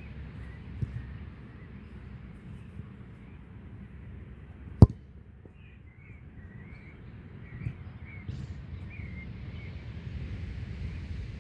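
Outdoor ambience with a low wind rumble on the microphone and small birds chirping in short bursts through the second half, broken by one sharp thump about five seconds in, with fainter knocks just before and after.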